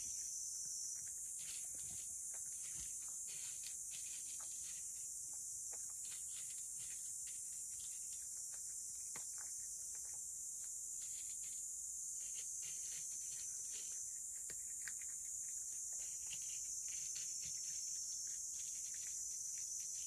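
A cat eating dry kibble from a shallow wooden dish: quiet, irregular crunches and clicks of chewing, over a steady high hiss.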